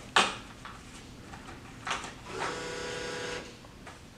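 Vending machine bill acceptor: a sharp click, a second click near the middle, then its small motor runs with a steady whir for about a second as it draws in a paper bill.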